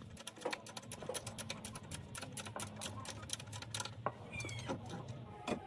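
Rapid, fairly even clicking, about eight to ten sharp clicks a second.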